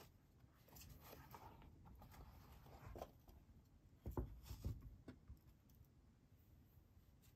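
Soft rubbing and handling of a pair of foam Crocs Pollex clogs, then two dull thumps about four seconds in as the clogs are set down on a table.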